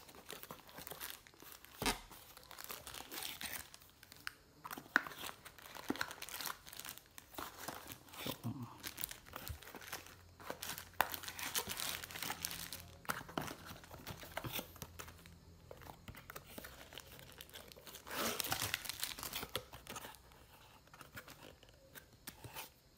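Clear plastic wrapping bag crinkling and cardboard box flaps rustling and knocking as a handheld GPS unit is taken out of its retail box, irregular handling sounds with a louder burst of crinkling about three-quarters of the way through.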